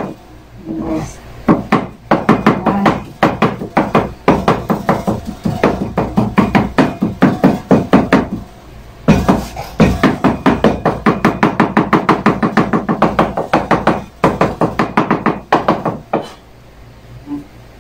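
Kitchen knife rapidly chopping boiled banana blossom on a cutting board: quick knocking strokes several times a second, in runs broken by short pauses.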